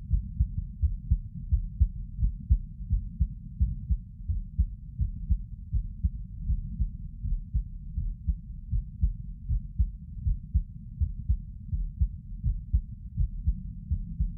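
A person's heartbeat recorded at the chest while sitting: a steady, regular beat heard only as low, muffled thuds.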